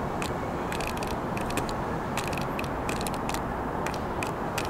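Approaching New York City subway train: a steady rumble with runs of sharp clicks and clacks, coming in small clusters roughly every second.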